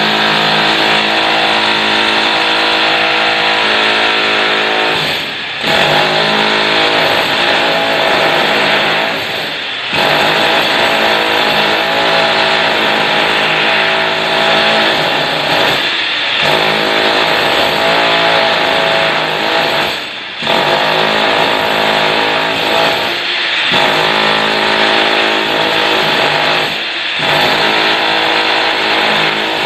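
Corded handheld electric power tool running hard against old floor tiles to break them up, a loud, steady motor whine with grinding noise. It lets up briefly about six times and starts straight back in.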